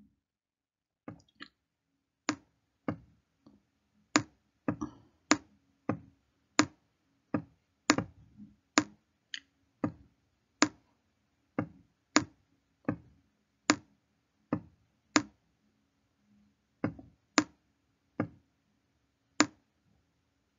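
A stylus tapping and clicking against a tablet screen while words are handwritten, with one sharp click about every half to one second over a faint steady hum.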